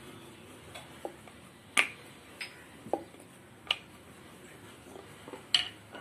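Wooden rolling pin rolling out paratha dough on a rolling board, with a scattering of sharp, irregular clicks and knocks as the pin and its handles tap the board.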